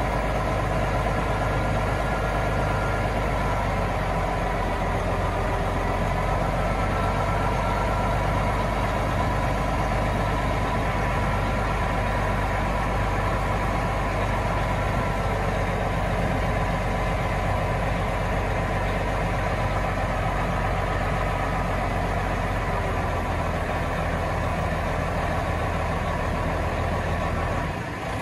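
Semi truck's diesel engine running steadily while the end-dump trailer's hydraulic hoist raises the bed. The low engine note shifts about five seconds before the end and dips briefly at the very end.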